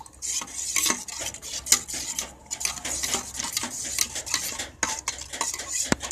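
A metal spoon stirring a thin ragi flour and water mix in a steel bowl, scraping and clinking against the sides several times a second as the lumps are mixed out. A sharper clink comes about two seconds in.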